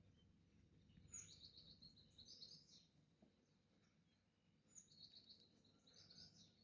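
Faint songbird singing: two phrases, each opening with a high note followed by a quick run of chirping notes. Low background noise lies under it.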